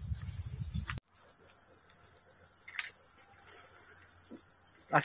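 Loud, steady, high-pitched insect chorus with a fast, even pulse, in a mangrove setting. It drops out for an instant about a second in. Before that drop, footsteps thud on the wooden boardwalk beneath it.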